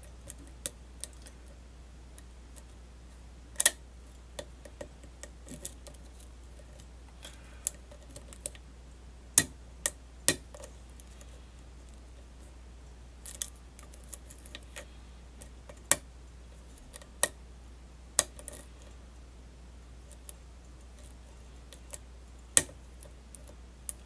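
Lock pick and tension tool working the pins of a brass pin-tumbler lock cylinder: about a dozen sharp metallic clicks and ticks at irregular intervals, several seconds apart at times.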